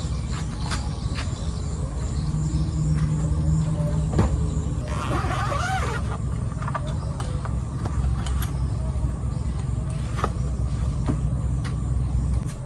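A motor vehicle running with a steady low rumble, with scattered light clicks and a brief wavering higher-pitched sound about five seconds in.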